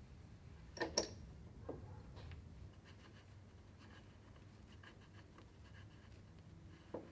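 Hands fitting a rubber hose to catch-can fittings: two sharp clicks about a second in, a lighter knock shortly after, then faint rubbing and scraping and another click near the end, over a low hum.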